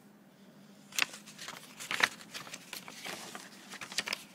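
Paper and cardboard rustling and crinkling as sheets of artwork are handled, with sharp clicks, the loudest about one and two seconds in.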